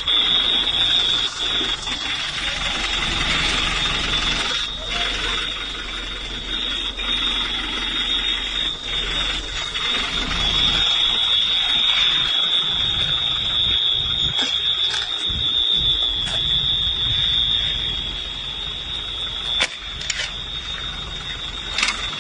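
A steady high-pitched alarm tone sounding without a break over noisy background sound, with some voices and a couple of sharp clicks near the end.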